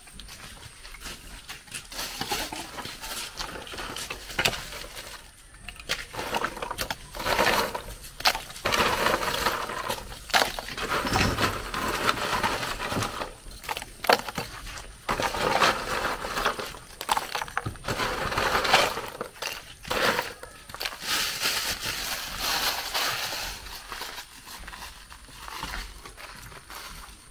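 Irregular bursts of crunching and clattering, busiest in the middle stretch and easing off near the end.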